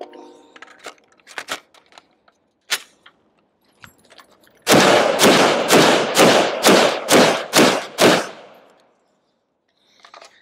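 CZ Bren 2 rifle in 7.62x39 firing unsuppressed. A few sharp clicks come first, then, about halfway in, a loud string of about ten shots at roughly three a second.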